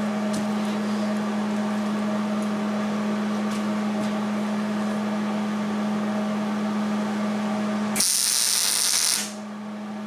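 A steady electrical hum, then about eight seconds in a short arc-welding tack: the welding arc crackles and hisses for just over a second and cuts off, tacking the steel pipe to the flat plate.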